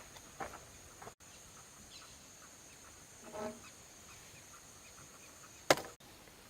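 A few faint taps, then a short clucking call near the middle, and a single sharp knock near the end, the loudest sound, over a steady high hiss.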